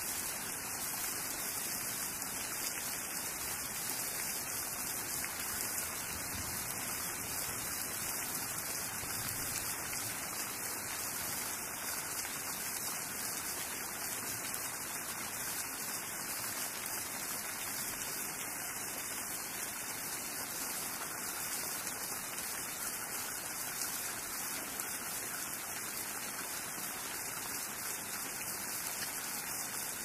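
Steady rainfall: an even, unbroken hiss of rain with no separate drops or other sounds standing out.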